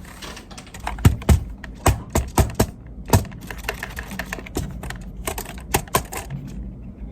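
Typing on a computer keyboard: a quick, irregular run of key clicks, with a handful of heavier strokes in the first three seconds.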